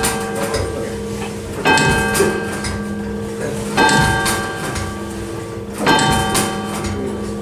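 Tower clock striking the hour on a church bell: single strokes about two seconds apart, each stroke ringing on into the next.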